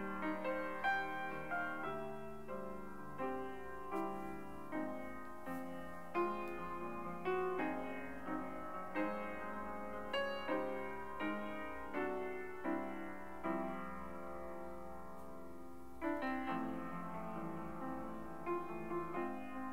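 Background piano music: notes and chords struck about once or twice a second, each ringing and dying away, with a chord held for a couple of seconds before the notes start again near the end.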